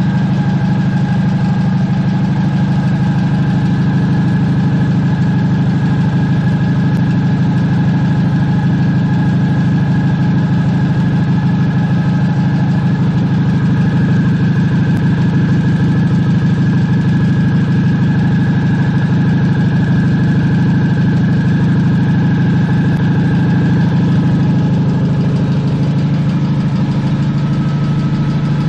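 Farmall 230 tractor's four-cylinder gasoline engine idling steadily, on its first run after a front main seal replacement.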